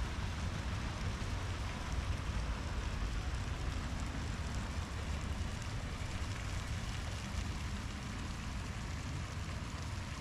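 Steady outdoor city ambience: a constant low rumble with an even hiss above it and no single event standing out.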